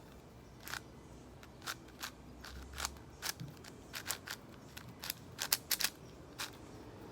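Plastic 6x6 speed cube being turned by hand during a solve: quick irregular clicks of its layers, about three a second, starting under a second in.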